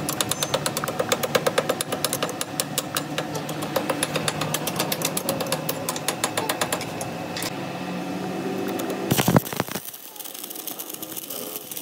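Metal lathe running, with a rapid, regular ticking as it machines the splined end of a truck's crown-wheel pinion shaft. About nine seconds in, electric arc welding strikes with a sharp crack and goes on as a steady crackling hiss.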